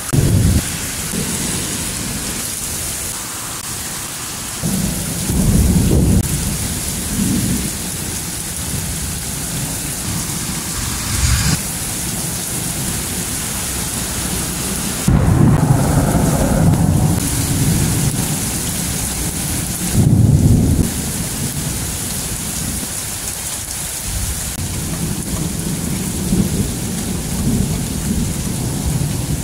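Thunderstorm: steady rain hiss with repeated low rolls of thunder. The loudest rumbles come about halfway through and again a few seconds later, and there is a short crack before them.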